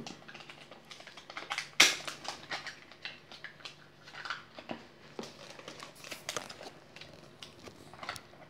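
Hands handling a smartphone's cardboard box and its plastic-wrapped accessories and packing tray: scattered taps, clicks and rustling, the loudest a sharp knock about two seconds in.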